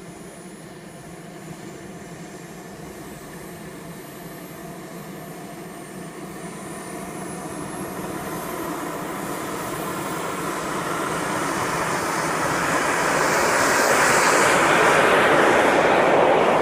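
Miniature turbine engine of a radio-controlled CT-45 Tutor model jet on its takeoff run. A high whine climbs in pitch through the first half, and the engine noise grows steadily louder to its loudest near the end.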